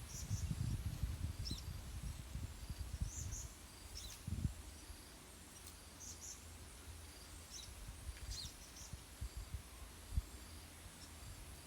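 Strong wind gusting and buffeting the microphone in uneven low rumbles, heaviest in the first few seconds, with faint short high chirps in the background.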